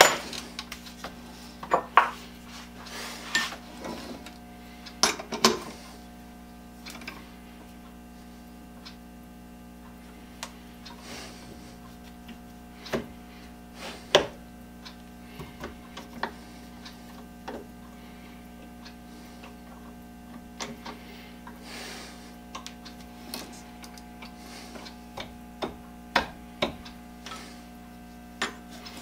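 Scattered metallic clicks and clinks of a chuck key and small tools worked at a metal lathe's three-jaw chuck, as the chuck is set around a wooden handle. There is a steady hum throughout, and the clicks cluster in the first few seconds and again near the end.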